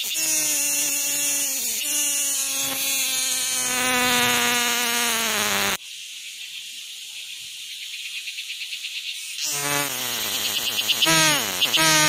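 Flying insects buzzing close by, low buzzy drones that keep sliding down in pitch as they pass. Nearly six seconds in, the buzzing cuts off suddenly, leaving a thin high hiss with faint ticking, and resumes a few seconds later.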